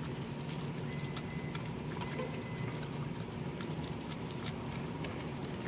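Small dog licking a soft-serve ice cream cone: faint, wet licking clicks, scattered and irregular, over a steady low hum inside the car.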